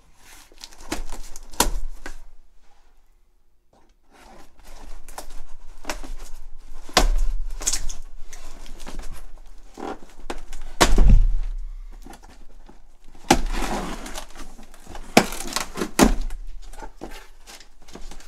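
A butter knife scraping and slitting packing tape on a large cardboard box, with repeated knocks and thunks of the cardboard. In the last few seconds the flaps are pulled open and crumpled brown packing paper rustles.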